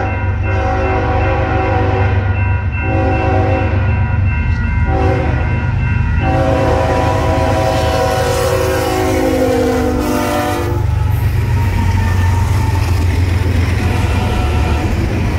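A BNSF diesel freight locomotive's air horn sounds several blasts for a grade crossing. The last long blast drops in pitch as the locomotive passes, and about eleven seconds in it gives way to the rumble of the locomotive and freight cars rolling past.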